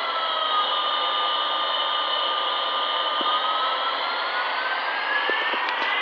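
Battery-powered toy airplane playing its electronic jet-engine sound effect: a steady hiss with a whine that drops in pitch, holds level, then climbs again in the last couple of seconds. A few light taps come near the end.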